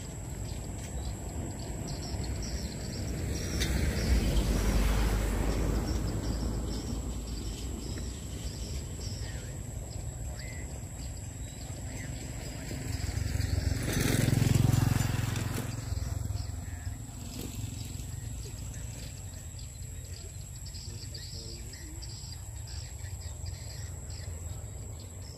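Rural outdoor ambience: a steady high-pitched insect drone, with two louder swells of rumbling noise, each rising and fading over a few seconds, about four and fourteen seconds in.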